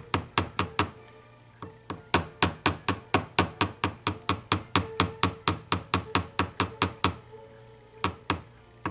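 A small flat-faced watchmaker's hammer tapping quickly and lightly on a metal rivet pin resting on a steel bigorne (beak anvil), about five taps a second, peening the pin over to form the rivet head in cold riveting. The tapping stops briefly about a second in and again around seven seconds in.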